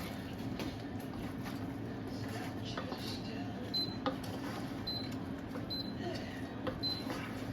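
A spoon clicking and scraping in a pan as crumbed chicken pieces are stirred gently into a sticky sauce, over a steady low hum. A short high chirp repeats about once a second from about halfway through.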